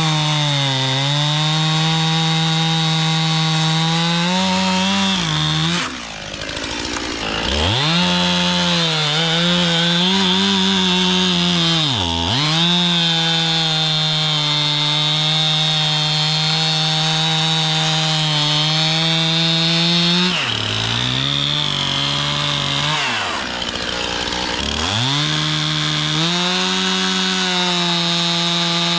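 Stihl MS291 two-stroke chainsaw running at high revs while cutting wood. Its engine speed drops and climbs back a few times: sharply about six seconds in, briefly around twelve seconds, and again from about twenty to twenty-five seconds.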